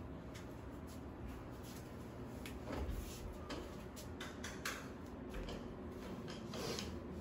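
Scattered soft clicks and knocks of a door being handled as someone walks through it, over a low steady room hiss.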